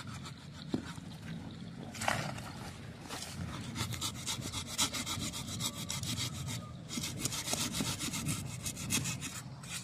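Hand pruning saw cutting through the stem of a young durian tree's water sprout near the base, in quick back-and-forth strokes. The sawing starts about three seconds in, pauses briefly near the middle, and goes on almost to the end.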